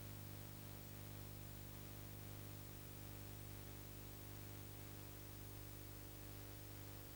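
Steady low electrical hum with a constant hiss and nothing else: background noise of a transfer of a film that has no soundtrack.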